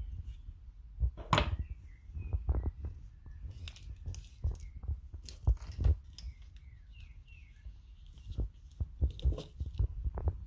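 Handling noise of small metal shock-service fittings and a plastic parts bag on a wooden bench: irregular clicks and light knocks over low thumps, the sharpest click about a second and a half in.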